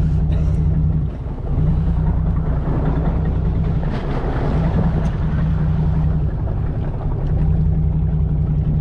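Fishing boat's engine idling with a steady low hum while the boat drifts, with wind and water noise over it. The hum dips briefly about a second in.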